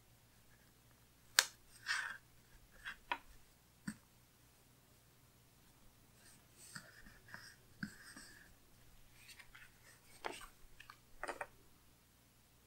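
Planner pages and sticker sheets being handled on a desk: scattered light clicks and taps with a few brief paper rustles. The loudest is a sharp click about a second and a half in.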